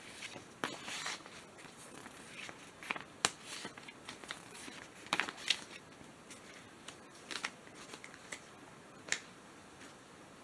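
Faint rustling and scattered light clicks of paper sheets being handled and flipped through.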